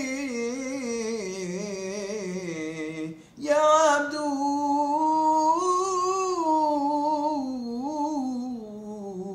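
A man's voice chanting Torah cantillation in the Constantine (Algerian Jewish) tradition, holding long ornamented melismatic notes that glide slowly up and down. A short breath breaks it about three seconds in, and then a second long phrase follows.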